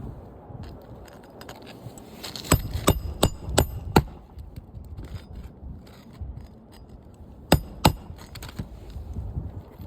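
Hammer blows on metal during a roof shingle repair, each with a short metallic ring: a quick run of five strikes, then two more a few seconds later.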